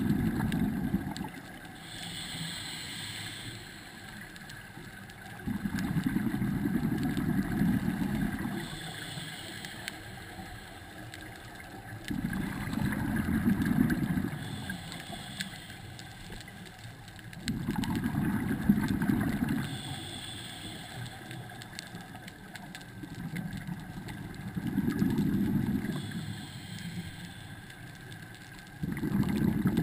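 Scuba diver breathing through a regulator underwater: a short hiss on each inhale, then a loud low bubbling as the breath is exhaled, repeating about every six seconds.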